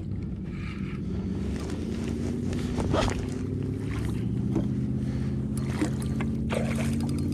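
A boat motor drones steadily and its pitch rises slowly from about two seconds in. Several sharp knocks and splashes come from around the kayak.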